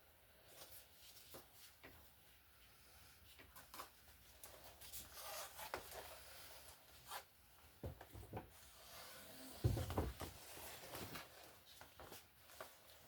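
Quiet handling noises: scattered light rubs and small taps, with a duller thump about ten seconds in.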